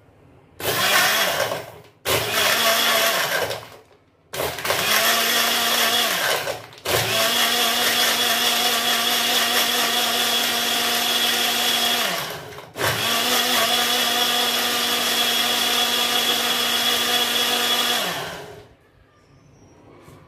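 Electric blender motor blending mango pieces, milk, sugar and ice cubes into a milkshake. It is pulsed three times briefly, then run twice for about five seconds each, whirring up at each start and winding down at each stop.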